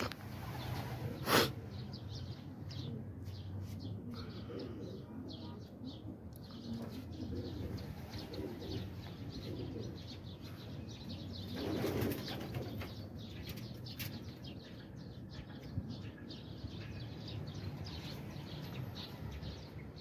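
Domestic pigeons' wings flapping as the flock is put up to fly, with some cooing. A single sharp knock comes about a second in, and there is a louder flurry of wings around the middle.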